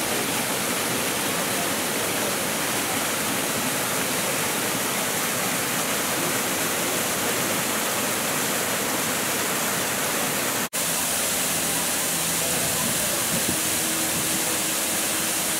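Water rushing down the stepped artificial cascade at the end of the Apulian Aqueduct, a steady dense rush. It drops out for an instant about two-thirds of the way through.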